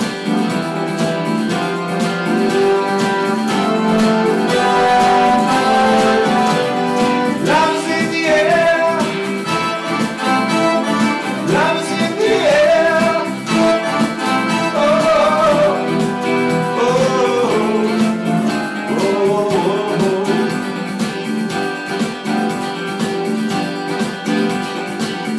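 Band music with guitar and keyboard: an instrumental passage with a bending lead melody over steady chords.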